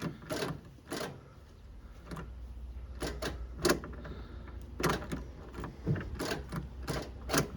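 Repeated sharp clicks as the key is worked on a Kioti tractor that will not crank, over a low steady hum that comes in about two seconds in. The tractor does not start: the PTO switch was left on, which blocks the starter.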